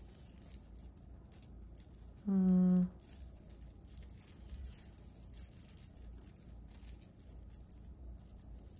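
Thin metal jewelry chains clinking and rattling faintly as a tangle of necklaces is worked apart by hand. A brief held hum of a voice comes about two and a half seconds in.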